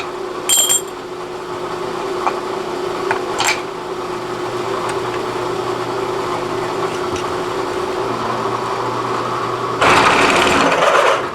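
Electric drill running steadily as a step drill bit cuts into a metal washer, with a brief high squeal about half a second in and a louder burst of cutting noise near the end.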